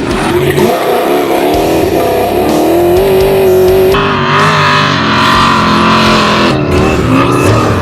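Rock music with a wailing electric guitar, over an off-road race vehicle's engine running.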